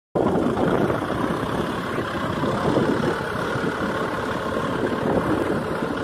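Tractor engine running steadily.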